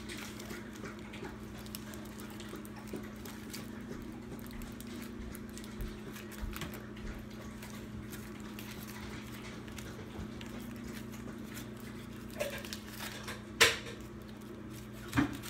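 Foil wrapper of a chocolate egg crinkling in small hands as it is peeled off, over a steady low hum, with a sharp tap on the counter near the end.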